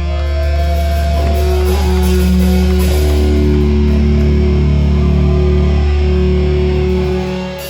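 Live heavy metal band playing: electric guitars holding notes over a loud sustained low bass, which drops away near the end.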